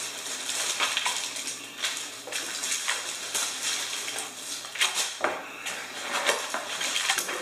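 Takeout packaging being unpacked on a tabletop. A thin plastic carry-out bag rustles and crinkles, and plastic food trays and a foam box give scattered sharp clicks and knocks as they are handled.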